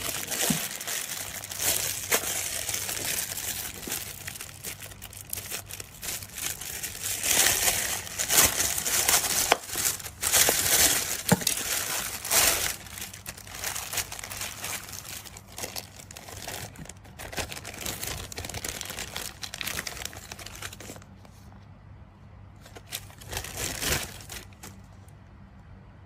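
Clear plastic bag crinkling and rustling in irregular bursts as it is handled and opened around a speaker's passive bass radiator. The bursts are loudest in the middle stretch and quieter near the end, with one last burst.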